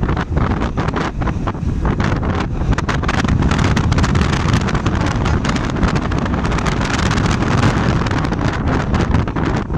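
Wind buffeting the microphone on a moving motorcycle, a steady loud rush with the motorcycle's engine and road noise underneath.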